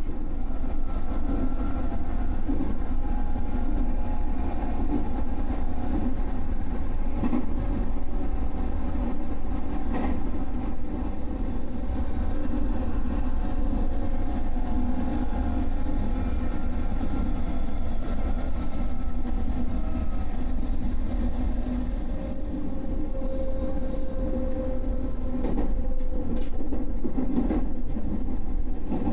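JR Nara Line electric train running along the track, heard from on board: a steady low rumble with a faint motor whine gliding up and down in pitch, and a few clicks from the rails.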